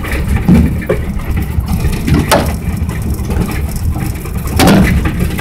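Low, steady road rumble of a pickup truck driving over a bumpy road, heard from inside its metal bed, with a few knocks and rattles, the loudest about two seconds and four and a half seconds in.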